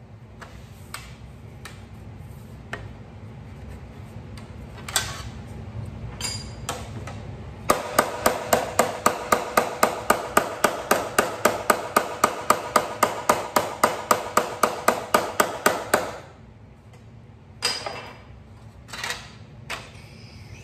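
Hand hammer striking the edge of an aluminum sheet panel over a wooden form, each blow ringing slightly. A few scattered knocks come first, then a fast, steady run of about four blows a second for around eight seconds, then three more single knocks near the end.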